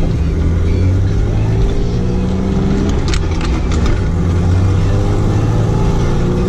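Manual-transmission pickup's engine heard from inside the cab while driving. The engine note climbs, drops back with a gear change about three seconds in, then climbs again. A few light clicks sound around the shift.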